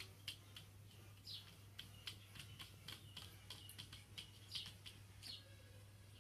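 Faint light taps and clicks of a kitten's paws and claws against a mirror and a wooden floor, scattered irregularly, with a few short, faint high chirps.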